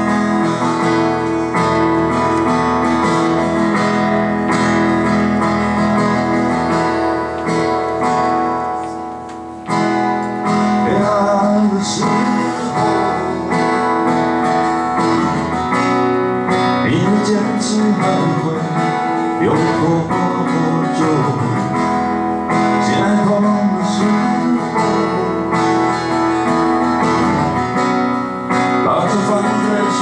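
Two guitars strummed and picked, an acoustic guitar prominent. The playing drops briefly just before ten seconds in, then a man's voice starts singing over the guitars.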